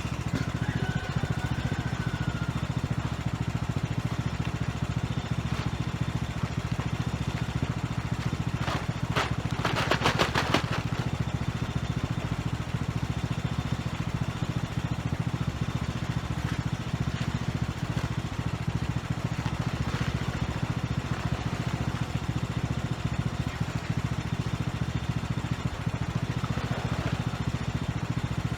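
Lawn mower engine idling steadily, left running to charge a battery that may be going bad. A short burst of rattling about ten seconds in.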